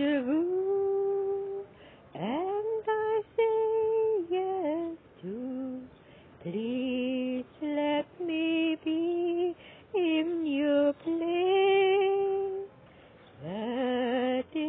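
A woman singing unaccompanied: one voice holding notes and sliding between them in short phrases, with brief pauses between phrases.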